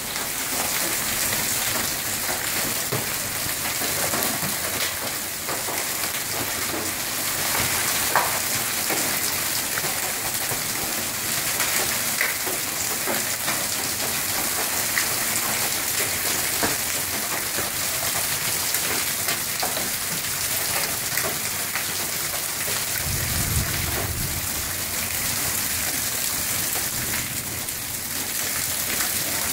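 Heavy rain mixed with hail: a steady, dense hiss of the downpour with many scattered sharp ticks of hailstones striking the pavement and nearby surfaces. A low rumble comes in about three-quarters of the way through.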